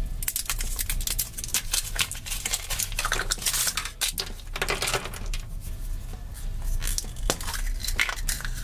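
Thin foil wrapper crinkling and tearing as it is peeled off a hollow chocolate egg, then the chocolate shell cracking apart around the plastic toy capsule inside, with many small crackles and clicks throughout.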